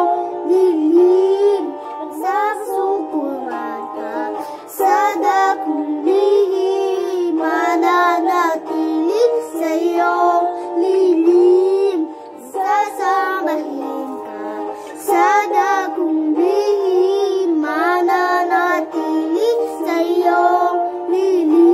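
A young girl singing a slow Tagalog worship song in phrases, over instrumental accompaniment with sustained chords that carry on between her lines.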